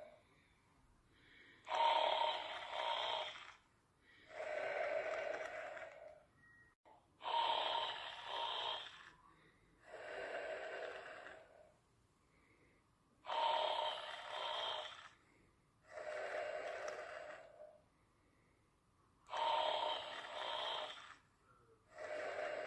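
Sleeper snoring in a slow, steady rhythm. A louder, sharper-starting rasping breath alternates with a softer one, and a full cycle takes about six seconds.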